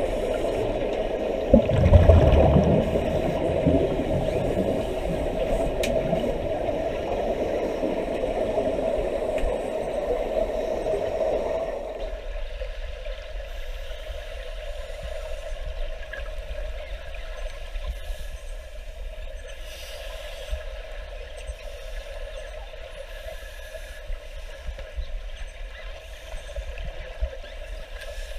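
Muffled underwater noise in a swimming pool, with the bubbling of scuba divers' exhaled air from their regulators. There is a thump about two seconds in, and about twelve seconds in the sound turns thinner and quieter.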